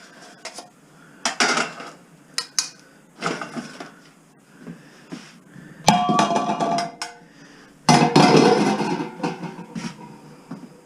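Metal pots and pans clanking and clattering as they are moved around, in several separate bouts, with a sharp ringing clank about six seconds in and the loudest, longest clatter about eight seconds in.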